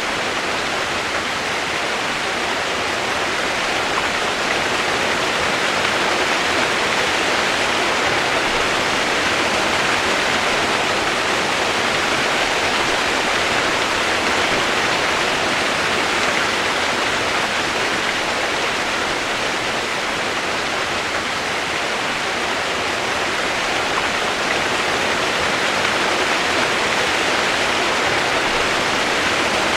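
Steady, unbroken rush of flowing water, even and unchanging throughout.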